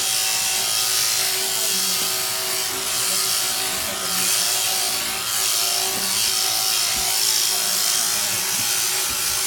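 Powered sheep-shearing handpiece running steadily as it cuts through a sheep's fleece, a constant mechanical buzz.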